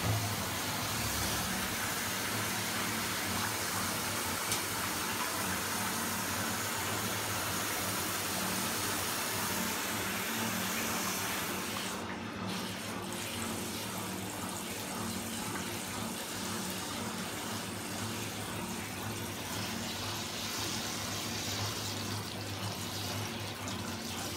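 Water from a handheld shower running steadily into a bathtub, with a short break in the spray about halfway through and a little quieter after it.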